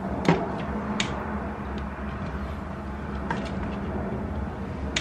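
A few short knocks and clicks from items being handled at a kitchen wall cupboard, over a steady low hum.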